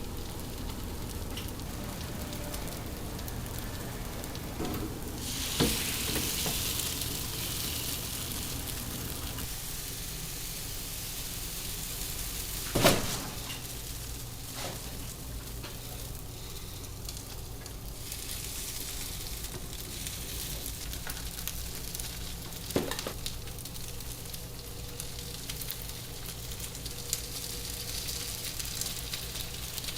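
Batter and filling sizzling in hot bungeoppang moulds, with a steady low hum underneath. Three sharp knocks come through, the loudest about halfway through.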